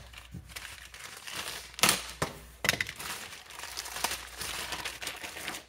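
Clear plastic packaging bag crinkling and crackling as it is pulled open by hand and a nylon tree-saver strap is worked out of it, with a couple of sharp cracks about two seconds in.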